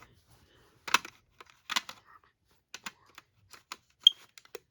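Scattered plastic clicks and taps from handling a smoke alarm, with one short high chirp about four seconds in.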